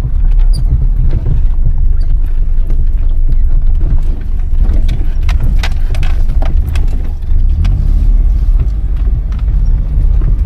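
Small Suzuki car driving on a rough, dangerous mountain road, heard from inside: a loud steady low rumble of engine and tyres, with scattered knocks and rattles as it jolts along.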